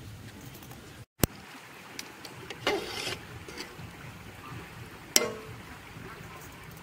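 A metal ladle knocking and scraping against a metal pot of fish curry as it is served: a short clatter partway through, then a sharp clink with a brief ring, over a low steady background. The sound cuts out for a moment about a second in.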